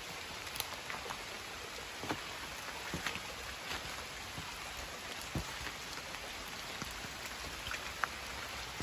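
Light rain falling: a steady hiss with scattered, irregular ticks of single drops.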